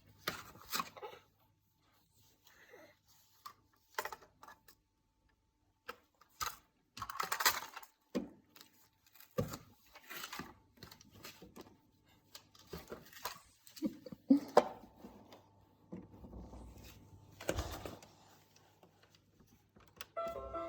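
Irregular clattering, rattling and knocking of toys being handled by a small child, in scattered bursts over a faint steady hum.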